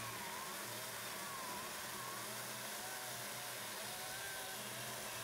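Ryobi 40V brushless battery chainsaw cutting through stacked 4x4 lumber, heard faintly. The electric motor's whine wavers up and down as the chain loads in the wood.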